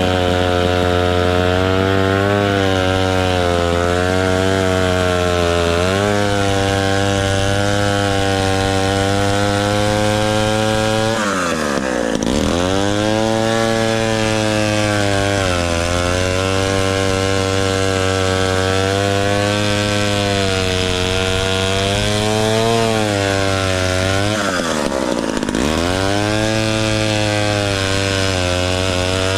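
1957 Danarm Fury chainsaw's Villiers 5F 98cc two-stroke engine running at high revs, its pitch wavering. The revs drop sharply twice, about eleven seconds in and again around twenty-five seconds, and climb back each time.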